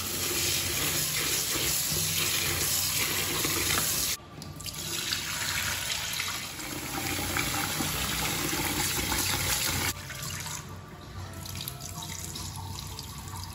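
Kitchen tap water running into a plastic bowl of rice in a stainless steel sink, then the cloudy rinse water poured off into the sink as the rice is washed. The rush cuts off suddenly about four seconds in, starts again, and is quieter after about ten seconds.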